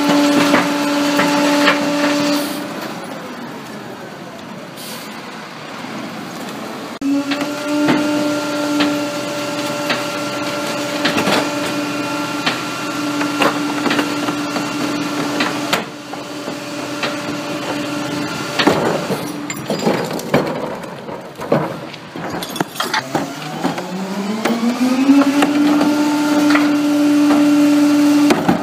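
Pak-Mor rear-loader recycling truck running its hydraulics: a steady engine-and-pump whine that drops away about two seconds in, comes back a few seconds later, falls off again about two-thirds through, then winds up in pitch and holds near the end. Knocks and clanks of the recycling cart and the hopper metal run throughout, and are busiest when the whine drops.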